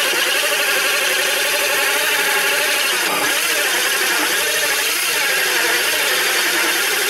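Power drill running a hole saw through a panel, the motor whining steadily under load, its pitch dipping and recovering a few times as the saw bites.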